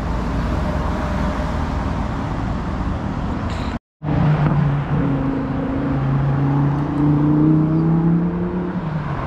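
Road traffic noise with a low rumble; after a sudden cut, a vehicle engine runs with a steady hum that slowly rises in pitch as it speeds up.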